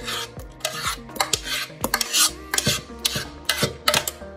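Spoon scraping thick, freshly cooked vanilla pastry cream out of a stainless steel pot into a glass bowl: repeated scrapes and clinks of the spoon against the pot, a few a second.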